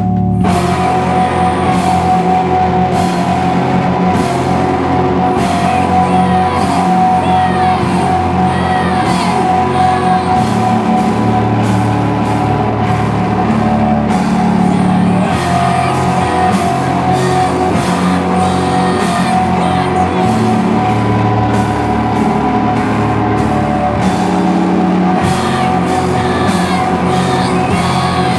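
A noise rock band playing live at full volume: sustained distorted guitar chords and bass over steady drums with frequent cymbal hits.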